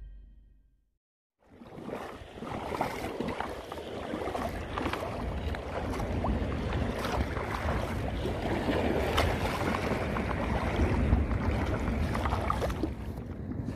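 A fading tail of music, a second of silence, then steady wind buffeting the microphone over choppy sea water, with scattered small clicks and knocks of the rod and spinning reel being handled.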